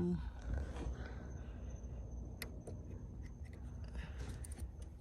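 Faint handling noise over a low steady rumble: scattered small clicks and taps as hands work at the trunk light's plastic wiring connector, trying to unplug it.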